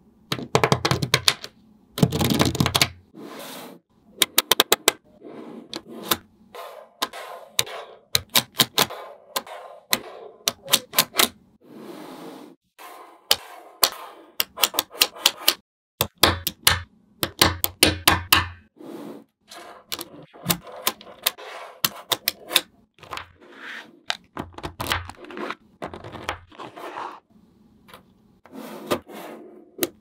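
Small magnetic balls clicking and snapping together as slabs and columns of them are set onto a build and pressed into place: quick, irregular runs of sharp clicks with short pauses between them.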